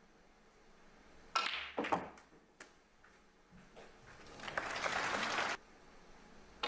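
Snooker balls clicking: the cue tip strikes the cue ball, half a second later the cue ball clicks against an object ball, and a fainter knock follows. The attempted pot is missed. A rushing noise then swells for a couple of seconds and cuts off suddenly.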